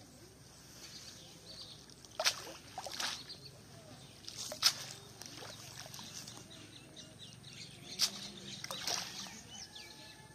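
A wet cast net being hauled out of a pond, water splashing and sloshing in several short bursts a second or so apart. Birds chirp faintly in the background.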